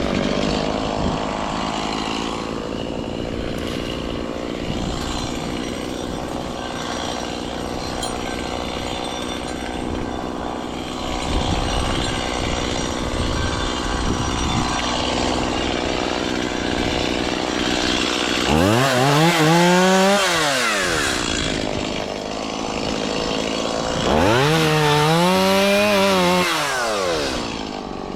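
Small engine running steadily, then revving up and back down twice, once about 18 seconds in and again about 24 seconds in, each rev lasting about three seconds.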